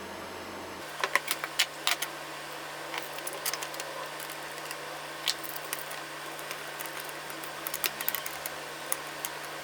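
Scattered light clicks and knocks of wooden and metal jig parts being handled and fitted together, the sliders of a homemade table-saw circle jig being joined, over a steady low hum.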